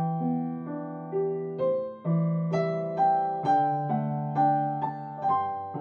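Background piano music: a gentle melody of notes struck about twice a second, each note ringing and fading before the next.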